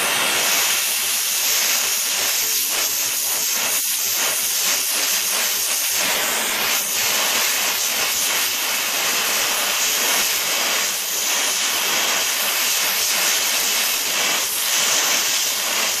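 Oxyacetylene torch flame hissing steadily as it heats a copper pipe joint for brazing.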